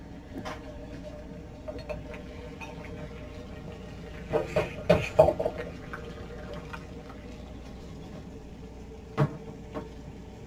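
Kitchen cookware and utensils knocking and clinking: a quick cluster of knocks from about four to five and a half seconds in, and one more sharp knock near the end, over a steady low hum.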